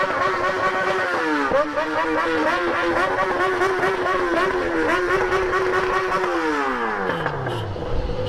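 Yamaha XJ6's straight-piped inline-four, with no muffler, running loud at high steady revs. Its pitch dips briefly about a second and a half in, then falls away smoothly over the last two seconds as the revs drop.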